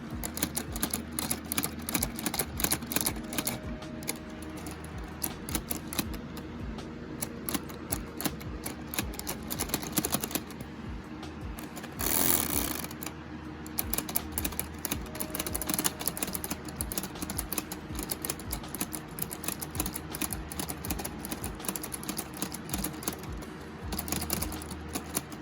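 Quick, irregular clicking and clacking of LEGO plastic parts, keys and bricks pressed and snapped on the LEGO Ideas Typewriter, with a brief rushing rustle about halfway through. Quiet background music runs underneath.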